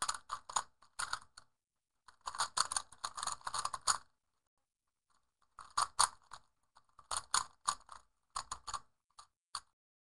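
3x3 Rubik's cube being turned at speed: rapid plastic clicking and clacking of the layers in quick flurries, with short pauses between them, the longest about four seconds in.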